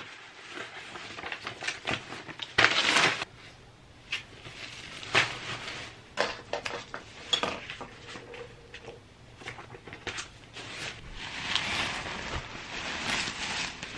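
Thin plastic trash bag rustling and crinkling as it is handled and shaken open, in irregular bursts, the loudest about three seconds in.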